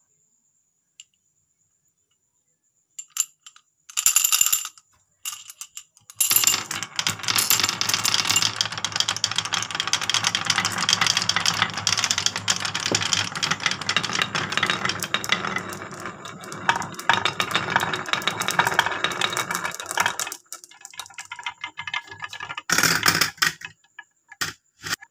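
Glass marbles and plastic balls rolling down a wooden marble run, clattering against the angled wooden baffles and the wooden track. After a few seconds of quiet a dense rattle of clicks and knocks builds, then thins out to scattered knocks near the end.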